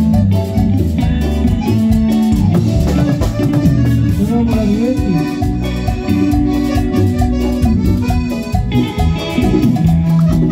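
Live Latin dance band playing, with congas, timbales, keyboard and accordion over a steady beat.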